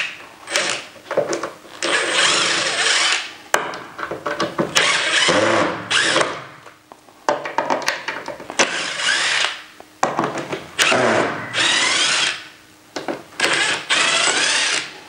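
Cordless drill-driver backing screws out of a door hinge on the frame, run in several short spurts of a second or so with pauses between.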